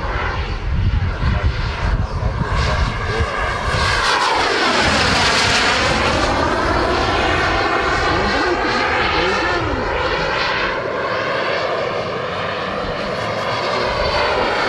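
Turbine engine of a radio-controlled model jet flying past: a steady jet roar with a thin high whine, sweeping into a whoosh as it passes about five seconds in, then carrying on as it flies away.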